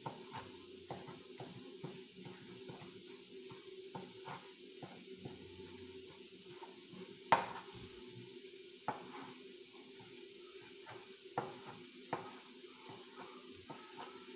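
Kitchen knife cutting through a cooked egg omelette onto a cutting board: a string of light taps and clicks, with one louder knock about seven seconds in. A steady low hum runs underneath.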